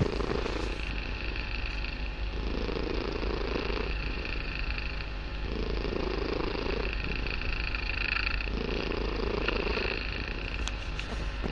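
A kitten purring loudly and steadily. The purr swells and eases with each breath, about once every three seconds.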